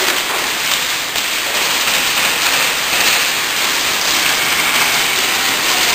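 Airsoft gunfire in an indoor arena: a steady, dense patter of rapid shots and BBs striking the plywood barriers, with no clear rhythm.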